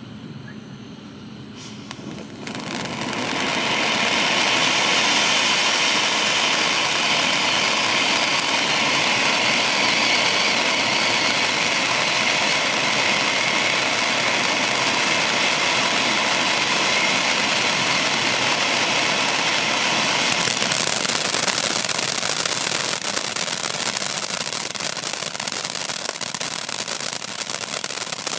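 Ground firework fountains from a Wolff 'Familie Juweel' compound: a fountain lights about two seconds in and sprays sparks with a loud, steady hiss. About twenty seconds in the hiss turns sharper, and fast crackling joins it toward the end.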